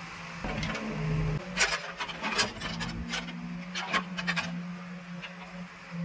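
Escorts Digmax backhoe loader's diesel engine running steadily while its bucket scrapes and clatters through a heap of earth and stones, in two bursts about a second and a half in and again around four seconds in.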